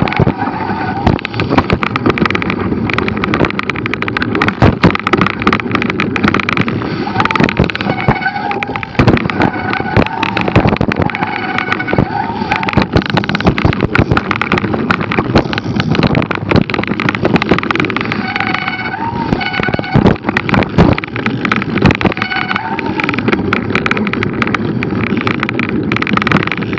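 Cannondale F-Si hardtail mountain bike clattering over a rough trail: a constant rattle with many sharp knocks from bumps, over steady wind and tyre noise. Brief squealing tones come in several times, around 8, 10, 19 and 23 seconds in.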